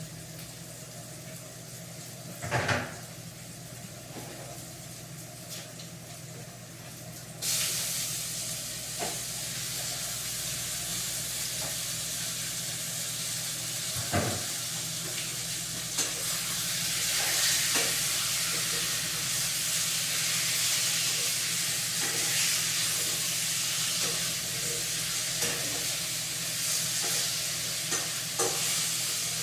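Food sizzling as it fries in a hot pan, the sizzle turning suddenly louder about seven seconds in, with a few sharp clinks of a utensil against the pan.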